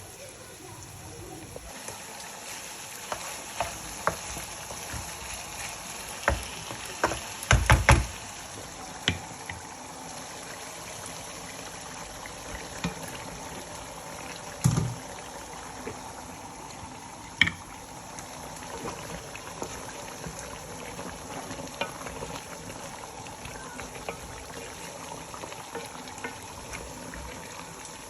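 Food cooking in a pan with a steady hiss, and a utensil knocking against the pan: a quick cluster of clinks about a quarter of the way in, then two single knocks later.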